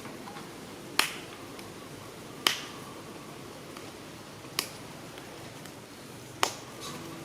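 Four sharp, short clicks or snaps, spaced one and a half to two seconds apart, over a steady background hiss.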